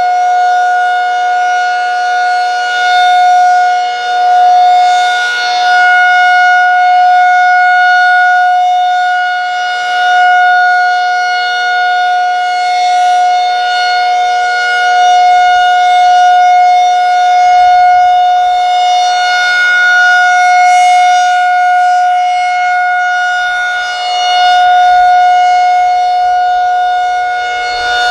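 Federal Signal 2001SRN electromechanical warning siren sounding its monthly test on a steady, unchanging pitch. The loudness swells and fades every few seconds as the rotating head sweeps past.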